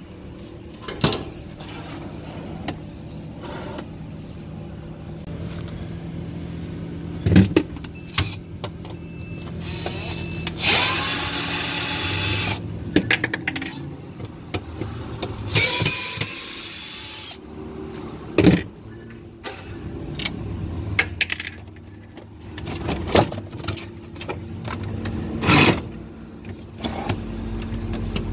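Screws being undone and plastic panels handled inside a refrigerator's freezer compartment: scattered knocks and clatter, with two harsh rasping stretches of about two seconds each, over a steady low hum.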